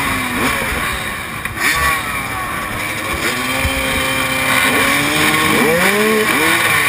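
Several enduro dirt bike engines running together, with their throttles blipped over and over so the pitch sweeps up and falls back, overlapping, most often near the end.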